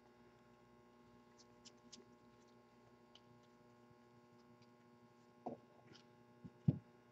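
Quiet handling of a stack of football trading cards: faint clicks and shuffles, then two soft knocks near the end as cards are set down on the table, over a steady electrical hum.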